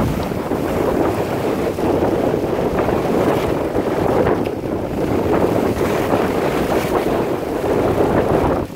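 Wind buffeting the microphone over the steady rush of water and waves around a moving fishing boat on choppy open sea. There is no clear engine note.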